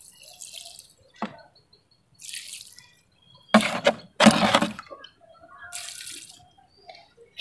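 Liquid fertilizer, diluted kitchen-waste compost liquid, being poured from a plastic cup onto potting soil and around a metal bucket, in about five short splashing pours.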